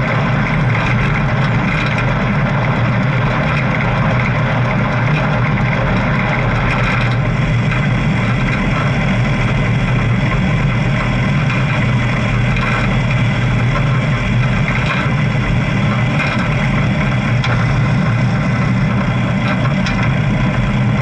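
Motorcycle engine running steadily under way, a constant loud drone with no change in pace.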